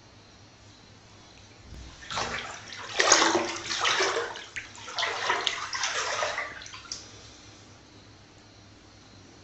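Water rushing and splashing into a bathtub in three bursts over about five seconds.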